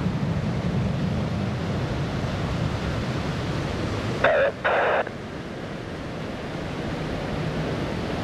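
Steady low rushing rumble of distant F-16 jet engines from the formation, mixed with wind on the microphone. About halfway through come two short, loud, high-pitched cries.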